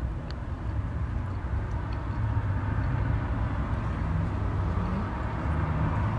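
A steady low mechanical rumble with a light noisy hiss above it, growing a little louder about two seconds in.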